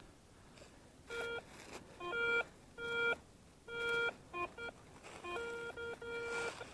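Electronic beeping: a string of short, steady-pitched beeps about once a second, then a longer held tone near the end.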